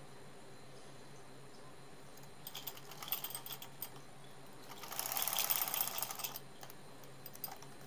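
Ittehad sewing machine stitching in short runs: a scattered clicking about two and a half seconds in, then a denser, louder run of clicking from about five to six seconds.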